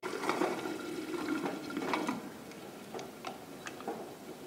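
Water and potatoes simmering in an aluminium pressure cooker, with a few light metal clinks from the ladle and lid being handled.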